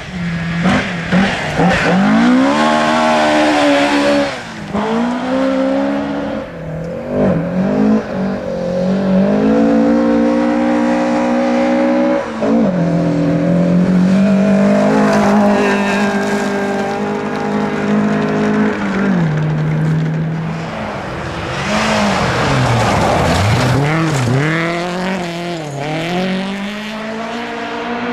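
Ford Escort rally cars driven hard on a gravel stage: the engines rev high, their pitch climbs, then drops sharply at gear changes and lifts, again and again.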